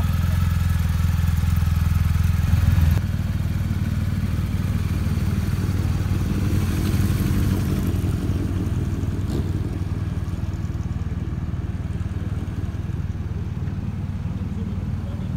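BMW GS Adventure motorcycle engine idling steadily. About three seconds in, the sound changes abruptly to a rougher, lower rumble of motorcycle engines running, which fades a little toward the end.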